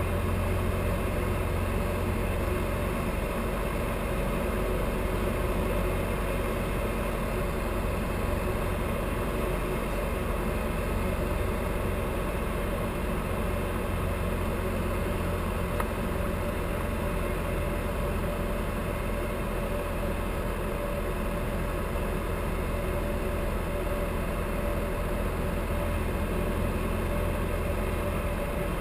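Mooney M20J's four-cylinder Lycoming IO-360 heard from inside the cockpit, a steady drone with the throttle closed to idle for a simulated engine-failure glide approach.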